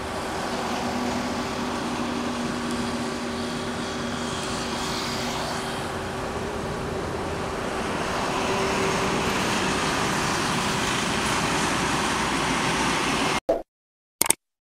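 Loaded Tata tanker trucks driving along a road, their diesel engines and tyres making a steady rumble that grows louder from about the middle on. The sound cuts off abruptly near the end, followed by two brief clicks.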